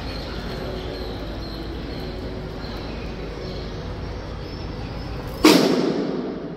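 Steady open-air background noise, then a single sudden loud crash-like hit about five and a half seconds in that fades away over about a second.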